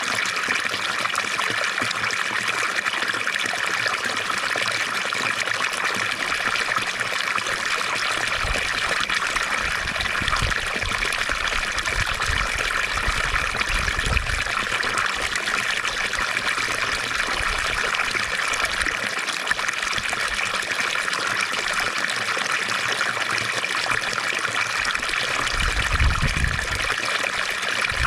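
Water from a fountain splashing and trickling steadily, an even hiss strongest in the upper-middle range. A few brief low rumbles come through around the middle and near the end.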